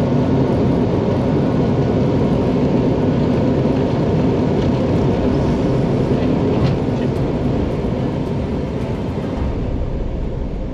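Airbus A320neo on its landing rollout, heard from the cockpit: a loud, steady rush of engine and airflow noise with a few faint ticks. It eases off near the end as the aircraft slows.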